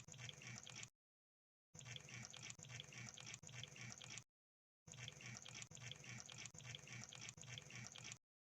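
Crab sound effect: a faint, dense crackle of small wet clicks, like bubbling. It comes in three stretches of one to three seconds each, with abrupt silent gaps between them.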